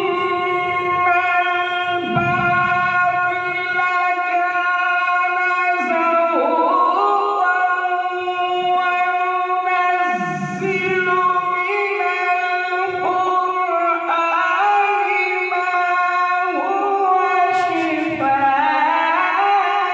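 A qari's voice in melodic recitation: long held notes with ornamented slides up and down in pitch, over a steady sustained tone underneath.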